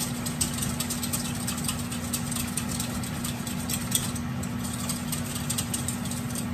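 Wire whisk beating a thin sauce in a stainless steel mixing bowl, the tines clicking rapidly against the metal, over a steady low hum.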